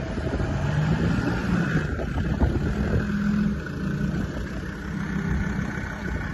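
An off-road 4x4's engine running under load, its note rising and falling as the throttle changes.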